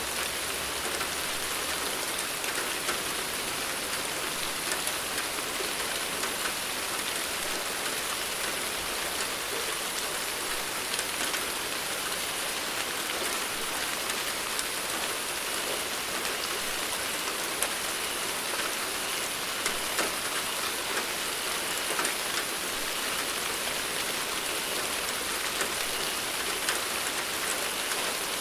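Steady rain falling on a surface: an even, dense hiss full of small drop ticks, with no thunder.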